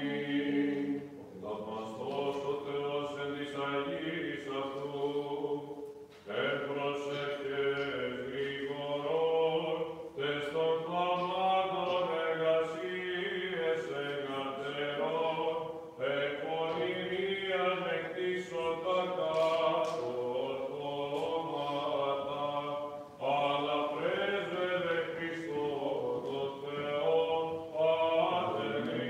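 Byzantine chant sung by church chanters in long, melismatic phrases with brief breaths between them, over a steady low held note.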